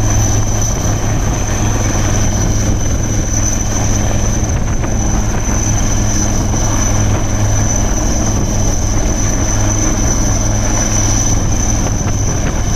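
Helicopter hovering overhead: steady rotor and engine noise with a steady high whine above it.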